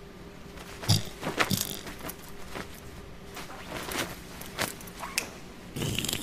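A series of short, sharp clicks and knocks, irregular and spread out, with a brief rush of noise near the end.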